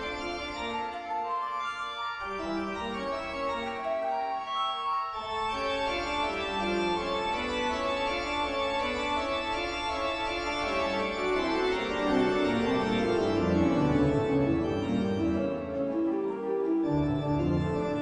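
Background music of sustained, slowly changing chords that grows fuller about five seconds in.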